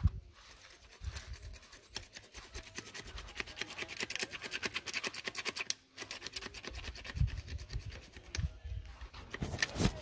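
A metal hand tool scraping and chipping concrete from around a metal meter-socket box set in a concrete post, in quick repeated strokes with a brief break about six seconds in.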